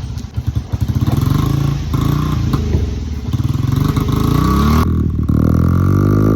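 Honda 50 dirt bike's small single-cylinder four-stroke engine running through its stock muffler, chugging unevenly at first. It revs up about four seconds in and holds a higher, steadier note near the end.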